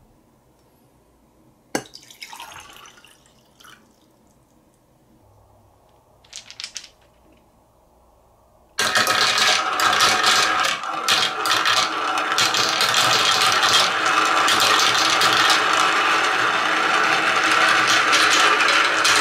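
Many plastic balls rolling and clattering around the plastic spiral funnel trays of a toy marble run: a loud, dense, steady rattle that starts abruptly about nine seconds in. Before it, a quiet stretch with a sharp glass clink and two short water sounds from a glass.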